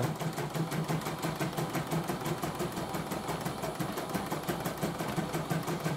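CNY computerized embroidery machine stitching out a test design at a rapid, even stitch rhythm: the needle bar and hoop carriage of a machine just repaired with a replaced motor and bobbin case.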